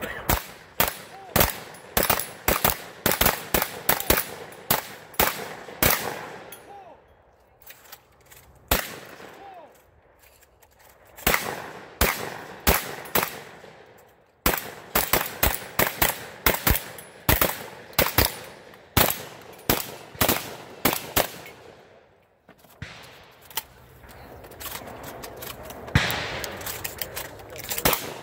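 Several shotguns firing rapidly at once at steel targets, shots coming close together and overlapping. The firing drops off twice, about a third of the way in and again around three-quarters of the way through, as the shooters reload, then picks up again.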